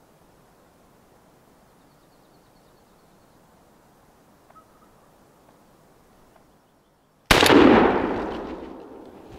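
A single shotgun blast about seven seconds in, loud and sudden, its echo dying away over about two seconds.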